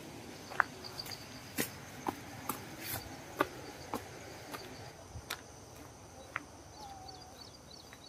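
Rural dawn ambience: a steady high insect drone, with a run of sharp taps about twice a second for the first five seconds and a few small bird chirps near the end.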